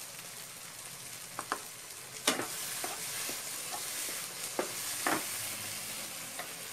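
A wooden spatula stirring thick brain-curry masala in a frying pan on the heat: a steady sizzle, broken by several short knocks and scrapes of the spatula against the pan, the sharpest about two seconds in.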